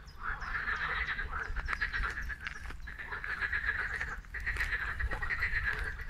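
Chorus of many frogs calling from a marshy pond: a dense, continuous chattering croak of overlapping pulsed calls.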